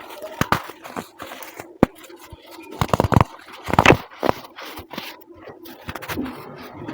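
Compressed baking soda being crushed and crumbled, giving irregular crunches and crackles. The loudest cluster of crunches comes about three to four seconds in.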